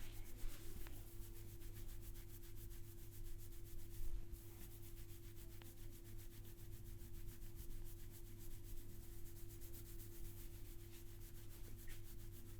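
A barber's hands rubbing over hair and scalp during a massage: a continuous soft rubbing, with a steady low hum underneath.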